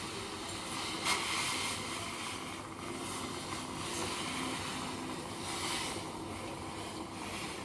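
Water with spices and tea powder boiling hard in a stainless steel pot on a gas burner, a steady bubbling hiss, with one sharp click about a second in.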